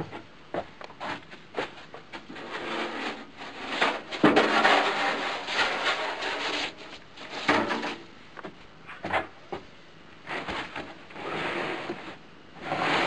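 Irregular knocks, bumps and rubbing noises, with longer stretches of scuffling about four seconds in and again near the end.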